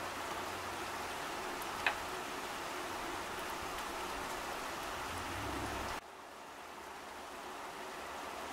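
Steady rain falling on garden foliage, with one sharp tick of a drop about two seconds in. About six seconds in the rain suddenly drops in level, then slowly builds back up.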